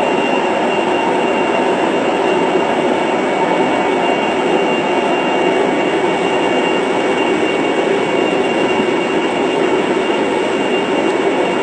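Steady roar of aircraft turbine noise with a thin high whine held on two steady pitches, heard from inside an aircraft's baggage hold.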